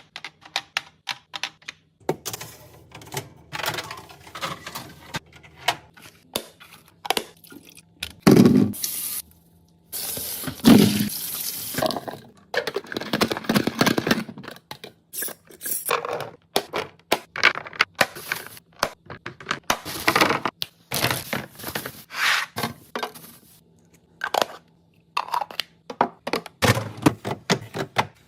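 Kitchen containers and food being handled for fridge storage: a string of clicks, knocks and rustles as items are picked up and set down, with several stretches of running or pouring water.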